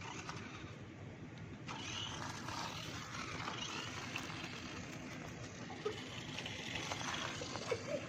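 Toy remote-control car driving over the ground: a steady motor and tyre noise, with a few light knocks near the end.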